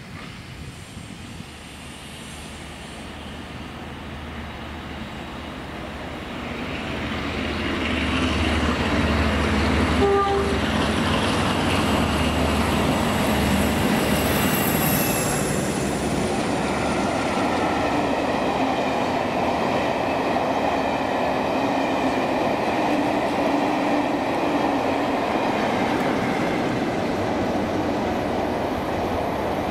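Trains passing close on main-line track: a steam locomotive working and a diesel-hauled train of coaches, the sound swelling about six to eight seconds in to a loud, steady rumble of wheels on rails. A brief horn toot sounds about ten seconds in.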